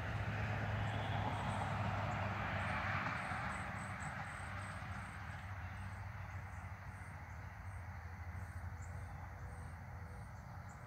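Distant vehicle noise that swells over the first few seconds and then fades to a low steady rumble, with a series of short high insect chirps over it.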